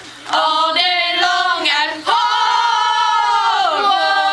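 Voices singing a cappella: a few short notes, then a long held note that slides down about four seconds in and settles on a lower held note.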